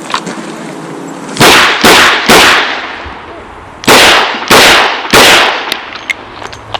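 Six .38 Special revolver shots from a Chiappa Rhino, fired in two strings of three about half a second apart, with a pause of about a second and a half between the strings.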